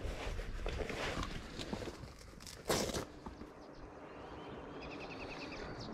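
Rustling and knocks as scuba gear is handled, with a louder clunk about two and a half seconds in. After that it goes quieter, and a small bird gives a quick run of short chirps near the end.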